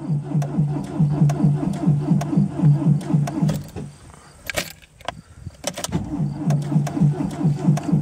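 Old Dacia's starter motor cranking the engine slowly and laboriously, a rhythmic pulsing of about four or five compression strokes a second. It stops with a click about halfway through and then cranks again. The slow cranking is the sign of too little current getting through thin 125-amp jumper cables.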